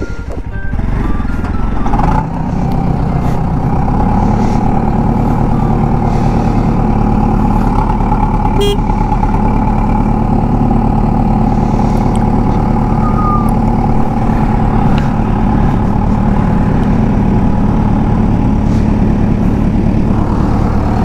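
Motorcycle engine running steadily while riding, picked up by a helmet-mounted mic with wind noise over it. The engine note rises about two seconds in, then holds even.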